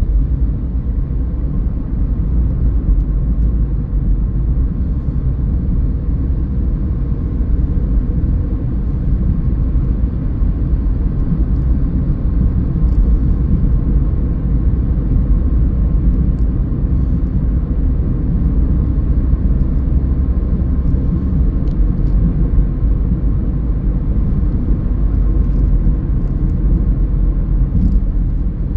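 Steady low rumble of a car on the move, road and engine noise with most of its weight in the low end.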